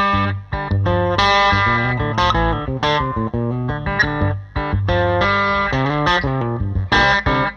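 Gibson ES-335 electric guitar played through a Bad Cat Classic Pro 20 Reverb, a 6V6 black-panel-style combo amp, with the gain set to full drive for an overdriven tone. It plays a run of notes and chords with brief breaks between phrases.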